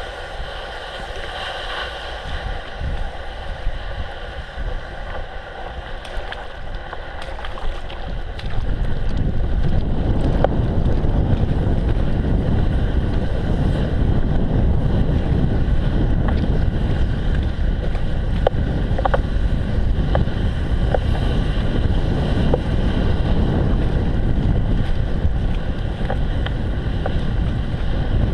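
Bicycle riding over wet slush and snow: tyre noise on the slushy surface under a steady rush of wind on the microphone, which becomes much louder and heavier about eight seconds in.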